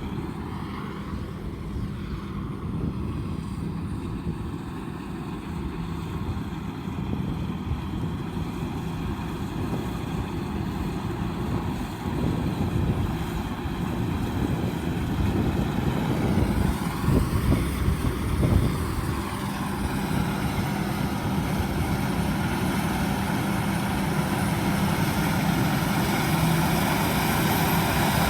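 Combine harvester running steadily under load, a constant engine hum with mechanical noise, growing gradually louder.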